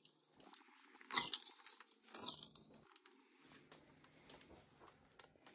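Clear plastic vacuum-seal bag crinkling as ground venison and pork is scooped into it by hand, with two louder rustles about one and two seconds in and faint rustling between.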